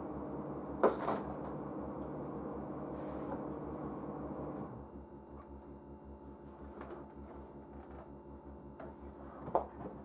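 Steady low droning hum that drops in level about halfway through, broken by two sharp knocks, one about a second in and one near the end.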